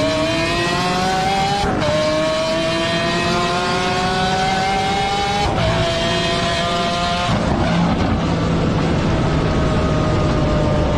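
Mazda Miata's four-cylinder engine pulling hard, its note climbing through the gears with upshifts about two seconds and five and a half seconds in. From about seven seconds on it settles to a steady, slightly falling note at cruise.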